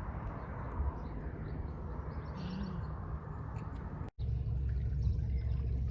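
Outdoor ambience: faint bird chirps over a steady low rumbling noise. The sound cuts off abruptly a little after four seconds in and comes back with the low rumble louder.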